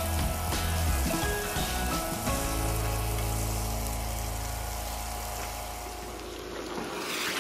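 Food sizzling as it fries in a pan, a steady crackling hiss, under background music.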